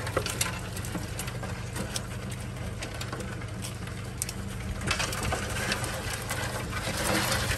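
Honda four-stroke outboard motor running steadily, with scattered clicks and rattles from crawfish and traps being handled in the boat's metal sorting tray. A louder burst of rattling comes about five seconds in.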